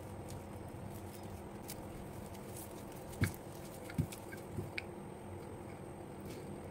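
A wooden rolling pin rolls dough between sheets of plastic cling film, giving a few short knocks and crinkles from about three seconds in, over a steady low hum.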